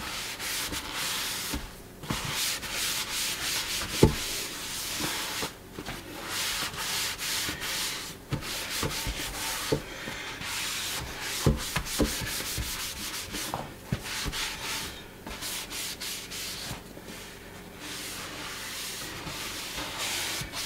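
Hand wiping strokes rubbing a towel over a black granite composite sink, spreading a clean-and-seal polish over the surface, in bursts with short pauses. There is a sharper knock about four seconds in and a few lighter knocks later.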